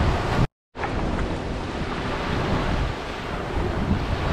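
Gentle sea waves washing onto a sandy beach, with wind rumbling on the microphone. The sound cuts out completely for a moment about half a second in, then comes straight back.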